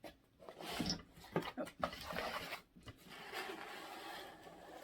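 Packaging being opened and handled: irregular rustling and scraping of paper and cardboard with scattered light clicks, longest from about three seconds in.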